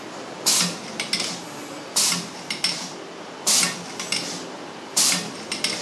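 Wood-Mizer band saw blade sharpening and setting machine working through the blade one tooth at a time: a short hissing burst about every second and a half, four in all, each with a few light metallic clicks after it as the next tooth is checked and set.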